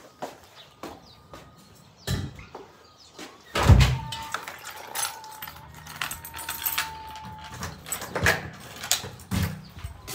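A door thudding shut a little under four seconds in, amid clicks, knocks and rustling from a handheld phone being carried.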